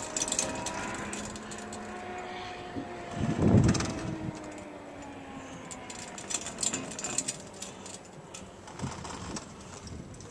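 Chairlift running: a steady mechanical hum with slowly wavering tones, a short low rumble about three and a half seconds in, and a run of quick clicks a few seconds later.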